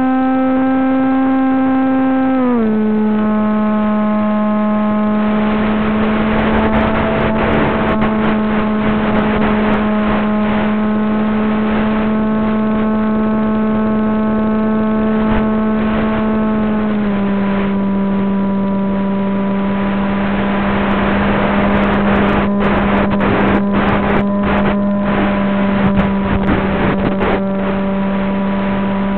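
FPV flying wing's electric pusher motor and propeller droning at a steady pitch in flight, stepping slightly lower in pitch about two and a half seconds in and again around seventeen seconds. Rushing air noise and scattered crackles ride over it.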